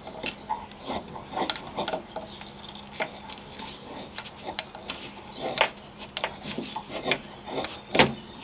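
Irregular small metallic clicks, taps and light scrapes as a Victorinox Swiss Army knife and sticks of fatwood are handled, with one sharper knock near the end.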